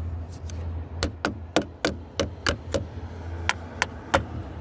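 Sharp metal knocks on a car battery terminal clamp, about three a second for two seconds, then three more after a short pause, as a tight clamp is tapped down onto the post. A steady low hum runs underneath.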